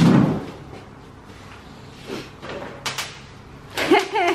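Bubble wrap over a plastic chair being handled and sat on: a loud rustle and scrape at the start, then shorter crinkles about two and three seconds in.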